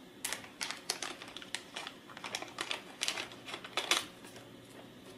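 Small clear plastic parts bag crinkling and rustling in a quick, irregular run of light clicks as a bundle of thin wiring cables is handled and pulled out of it. The sound stops at about four seconds.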